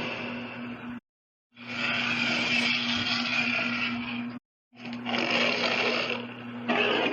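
Spinosaurus sound-effect roars: breathy, hiss-like roars a few seconds long, one after another, each cut off abruptly by a short gap of silence, over a steady low hum.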